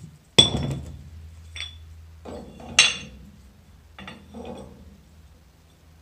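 Iron weight plates clanking and ringing against each other as extra plates are slipped onto a stack hanging from a chain. A sharp clank comes about half a second in and another near three seconds, with lighter knocks between and after.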